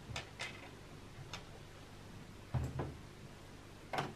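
A few light clicks and taps of a small metal screw and a screwdriver against the plastic top cover of a sewing machine as the screw is fitted into its hole, with one duller knock a little past halfway.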